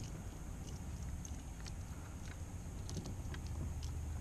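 Scattered light clicks and taps from fishing tackle being handled (rod, reel and lure), over a low steady hum that grows a little louder about three seconds in.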